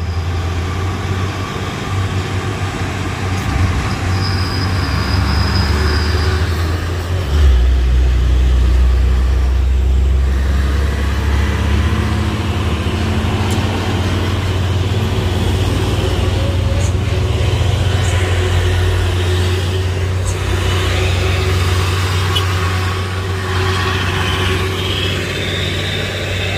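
Road traffic on a hill climb: the engines of passing trucks and cars running, with a deep, steady engine rumble that grows heavier about seven seconds in.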